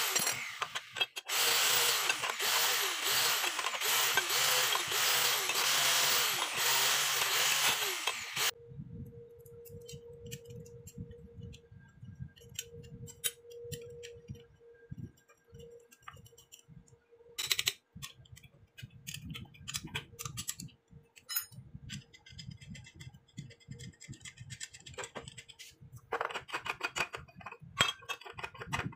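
Handheld angle grinder running with an abrasive disc against steel, dropping out briefly just after the start and stopping abruptly about eight seconds in. Then scattered metal clinks, knocks and rattles of tools and brackets being handled, with a faint steady hum and a run of rapid clicks near the end.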